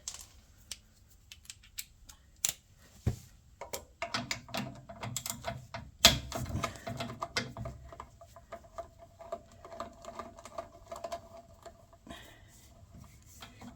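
Hand tools clicking and knocking on metal while the carburettor is being unbolted from a small petrol engine, with a run of rapid clicking from about four seconds in to about twelve and one louder knock near the middle.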